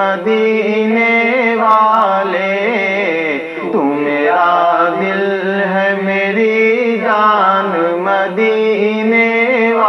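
A group of men singing a naat, an Urdu devotional song, in unison. The melody moves in ornamented phrases over a steady held drone.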